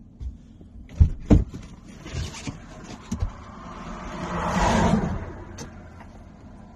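Two sharp knocks of a phone being handled inside a car, then a car's power window motor whirring for about two seconds, swelling and fading away.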